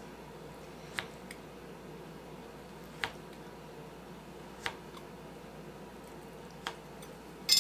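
Kitchen knife cutting through a frozen log of cookie dough on a wooden butcher-block board: four short, sharp taps about two seconds apart as the blade goes through each slice and strikes the wood. A brighter clatter starts right at the end.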